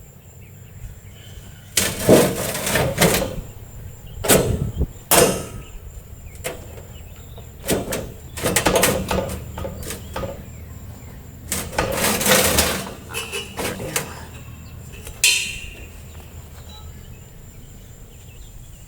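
A metal propane tank being worked loose from its compartment: irregular scrapes, clunks and rattles in several short spells, the loudest about two seconds in and again around twelve seconds.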